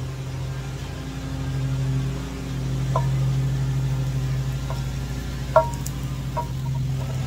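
Lawn mower engine running steadily as a low drone, with a few light knocks of a wooden spatula against the skillet, the sharpest a little past halfway.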